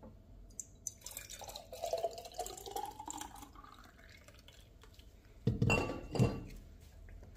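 Ginger-and-lemon juice being poured into a container, the pitch rising as it fills. Two knocks follow near the end.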